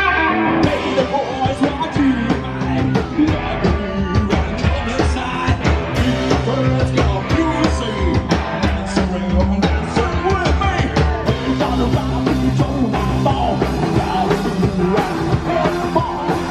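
Live punk rock band playing loudly: shouted vocals over a fast-driving electric guitar and a busy drum kit.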